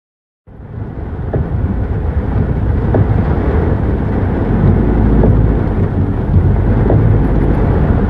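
Storm runoff cascading off a rock cliff as a muddy waterfall in heavy rain: a loud, steady, low rushing rumble that starts about half a second in.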